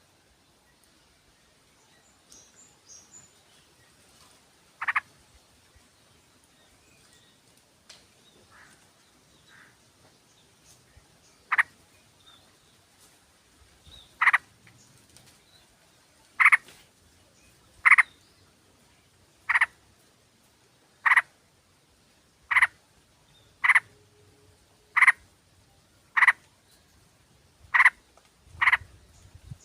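Yellow-vented bulbul (trucukan) giving short, sharp single call notes, a few scattered at first, then repeated steadily about every second and a half. This is a lure call used to draw other bulbuls and set them calling.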